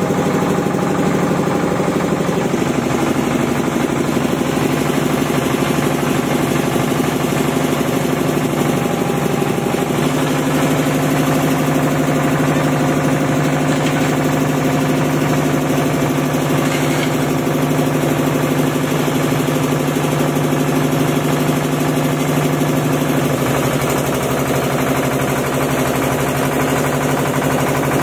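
Engine of a concrete mixer and bucket hoist machine running steadily under load, its note shifting a few seconds in and again about ten seconds in.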